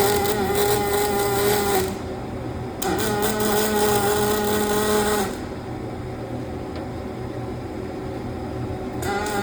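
Electric arc welding in short runs: a hissing, crackling arc with a steady pitched drone. The first run stops about two seconds in, another runs from about three to five seconds, and a third starts near the end. A lower steady hum fills the gaps between runs.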